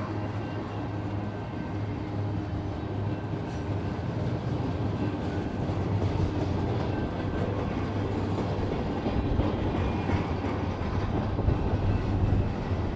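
Double-stack intermodal freight train rolling past: steel wheels on the rails and the rumble and rattle of container-loaded well cars, steady, growing a little louder in the second half.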